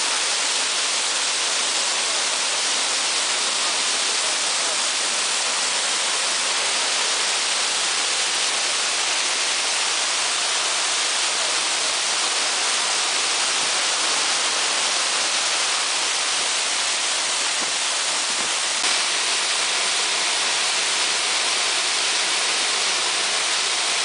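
Waterfall crashing down a rock face into its pool close by: a steady, unbroken rush of water, strongest in the high hiss.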